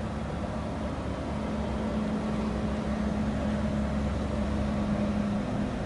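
A steady low mechanical hum with a low rumble under it. It grows a little louder about a second in and eases near the end.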